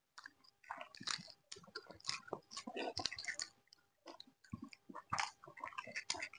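Chewing and smacking of wet mouthfuls of chicken curry and lemon rice, a quick irregular run of clicks and smacks that eases off for about a second midway.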